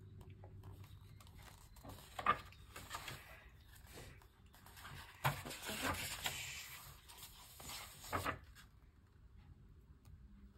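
Paper rustling as a picture-book page is handled and turned, coming in bursts about two seconds in and again from about five to eight seconds in.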